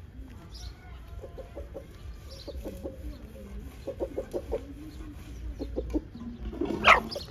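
Chickens clucking in short runs of quick clucks, with one much louder burst near the end.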